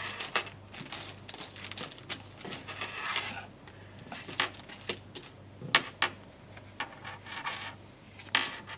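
Packaging of a felt craft kit being opened and handled: irregular rustling and small sharp clicks, busiest in the first three seconds, then a few separate ticks.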